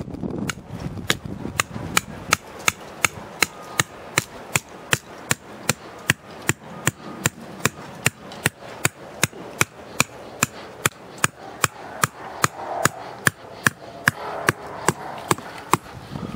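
Hammer striking a metal trap stake, driving it into the ground: steady sharp blows, about two a second.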